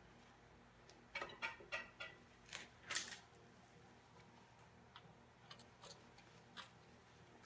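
A quick run of light clicks and taps about a second in, then a few faint scattered ticks: small hard parts being handled and set down.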